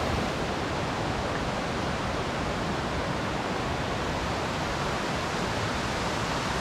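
Steady rushing of a fast mountain river, an even wash of water noise with no breaks.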